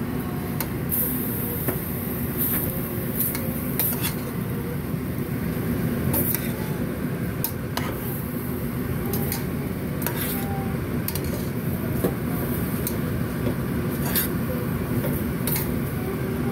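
A metal spoon stirring ground meat and mushrooms in a stainless steel pot, with repeated short clinks and scrapes against the pot's sides, over a steady low rumble.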